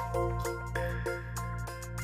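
Instrumental background music: held bass notes under a line of short, bright melodic notes.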